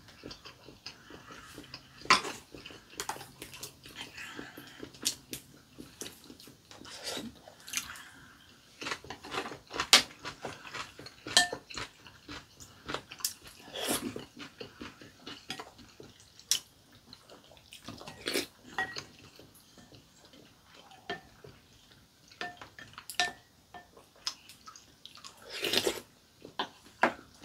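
Two people eating sujebi, hand-torn dough soup: close-up chewing, with many irregular sharp clicks of chopsticks and spoons on ceramic bowls.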